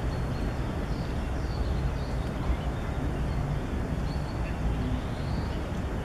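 Steady low rumble with faint, short, high bird calls every second or so.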